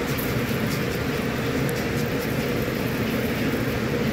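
Steady mechanical hum, even and unchanging throughout.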